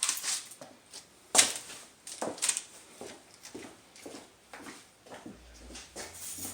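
Irregular knocks and clicks, about a dozen short hits scattered unevenly, the loudest about a second and a half in.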